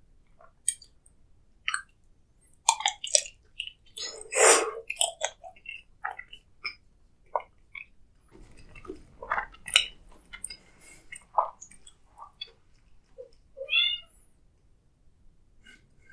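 Close-miked eating sounds: irregular crunches, bites and wet mouth clicks. About fourteen seconds in comes a brief pitched vocal sound that rises and falls.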